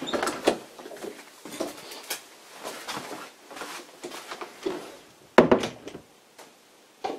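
Irregular knocks, clicks and rustles of someone moving about and handling things, with a louder clatter of knocks about five and a half seconds in.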